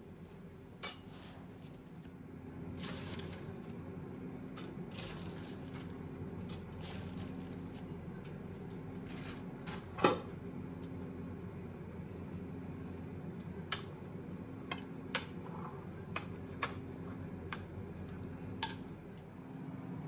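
Metal spoon scraping and clinking against a ceramic plate as sliced onions are mixed with spice powder, in scattered short clicks, the sharpest about halfway through. A steady low hum runs underneath.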